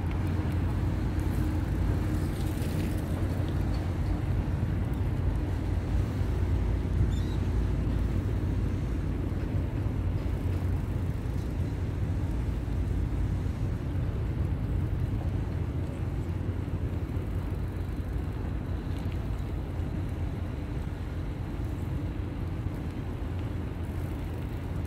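Steady low rumble of riding a bicycle along a paved path: wind buffeting the camera microphone and the tyres rolling on the pavement.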